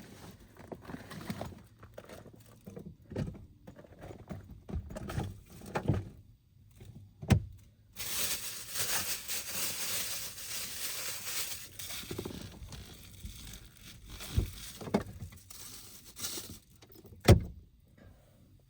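Things being handled at close range: scattered knocks and clicks, two sharp knocks, and about four seconds of dense rustling noise partway through.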